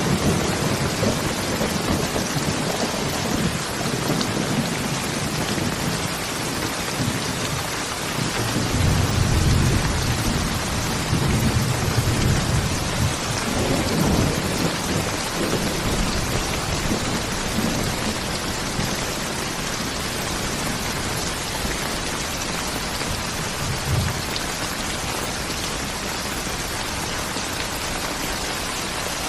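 Steady heavy rain falling, with thunder rumbling low underneath that swells strongest between about 8 and 15 seconds in, a short low clap near the end, then rain alone.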